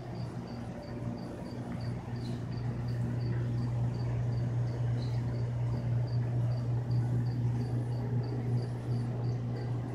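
Steady low hum of the shop's aquarium pumps and filtration, with a cricket chirping high and evenly, about three chirps a second.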